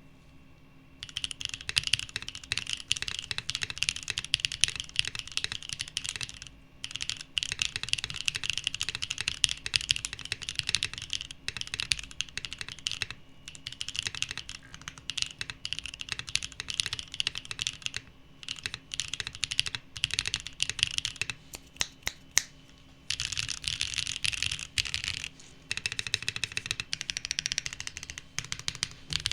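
LeFishe mechanical keyboard with Mozzarella tactile switches being typed on in fast runs of keystrokes, broken by short pauses. About three quarters of the way through, the typing thins to a few separate key presses before the fast runs resume.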